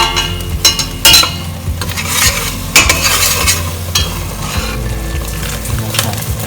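Curry powder being stirred into a sizzling paste of fried garlic, ginger and onion in a pot, with the utensil scraping the pot in repeated strokes over a steady sizzle.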